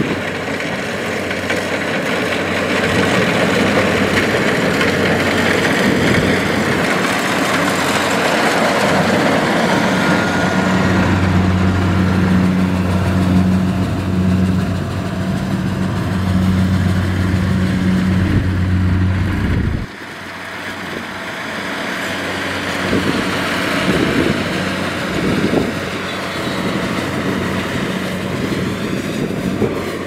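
Kubota DC70 rice combine harvester running as it cuts rice: steady engine and threshing-machinery noise, with a low hum strongest in the middle. The level drops suddenly about twenty seconds in, then the machine noise carries on quieter.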